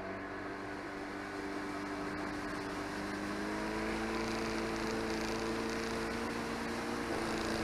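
Boat motor running under way, its pitch creeping slightly higher as the boat gathers speed, over a steady hiss of wind and water.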